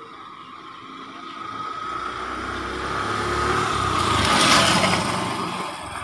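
Motorcycle engine sound effect that swells louder, peaks about four and a half seconds in, then fades, like a bike passing by.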